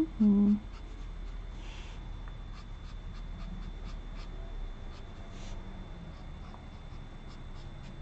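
Tombow ABT brush marker working over colouring-book paper: faint soft scratching strokes with light ticks. A brief low voice-like sound comes at the very start.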